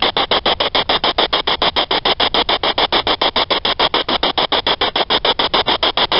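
Spirit box sweeping rapidly through radio stations: loud static hiss chopped into about eight bursts a second.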